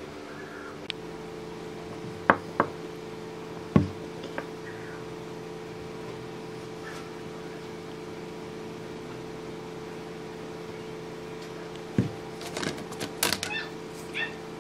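Wooden slats and blocks knocking and clacking against each other and the wooden workbench as they are handled and set down: a few sharp knocks in the first four seconds, then a quick cluster of clacks near the end. A steady low hum runs underneath.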